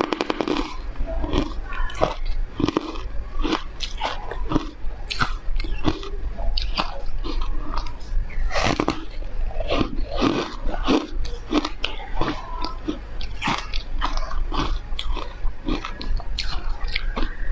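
Close-miked biting and chewing of crunchy foam ice dusted with matcha powder: dense, irregular crunches and crackles, several a second, from repeated chewing.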